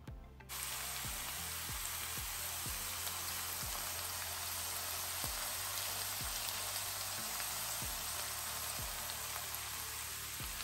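Sweet peppers, onion and red herring sizzling steadily in oil in a frying pan, starting abruptly about half a second in. Background music with a low beat plays faintly underneath.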